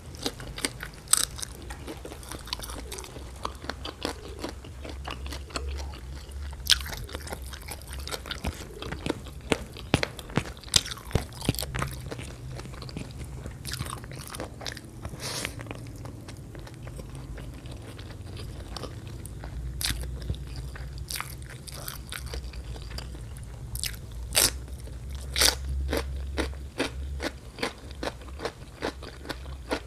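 Close-miked eating: biting into large stir-fried prawns coated in chili paste and chewing them with rice, with many irregular sharp crunches and wet mouth clicks.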